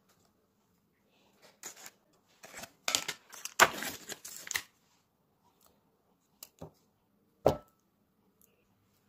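Foil lid peeled off a plastic tub of cream cheese: a rustling rip lasting about two seconds. Then come two light knocks and one sharp knock near the end as a plastic spatula scoops the cream cheese into a glass bowl.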